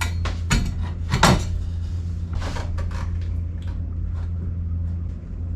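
A few short metallic clinks and knocks as brass and copper plumbing fittings are handled and fitted together, the sharpest about a second in, over a steady low hum.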